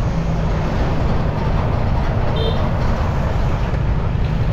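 Motorcycle riding along a road: a steady engine drone and rushing wind and road noise. A short, faint beep comes about two and a half seconds in.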